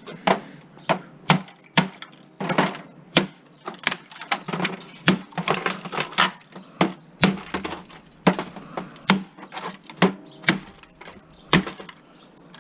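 Irregular clicks and knocks of a hard-plastic Nintendo 64 console case being handled and turned over on a work surface, about one or two sharp clacks a second.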